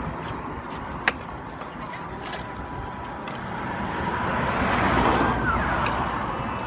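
Outdoor street noise with a passing vehicle that swells to a peak about five seconds in and then fades, and one sharp click about a second in.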